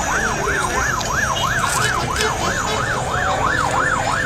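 Emergency vehicle siren wailing in a fast yelp, its pitch sweeping up and down about three to four times a second, over a steady background rumble.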